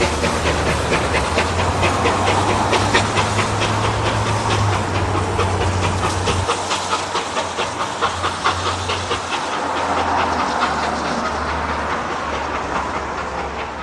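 Victorian Railways R class steam locomotive hauling its train away: a rapid run of sharp exhaust beats and wheel clatter over steam hiss, growing gradually quieter toward the end as it recedes.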